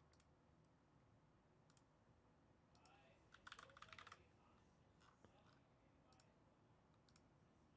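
Near silence: room tone with a few faint scattered clicks.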